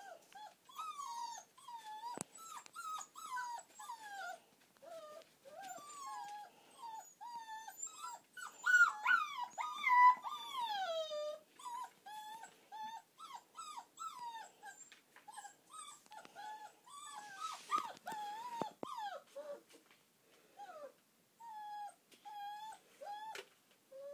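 Puppies whining and yelping as they play-wrestle, a continuous string of short high-pitched cries that rise and fall, loudest and shrillest a little before halfway.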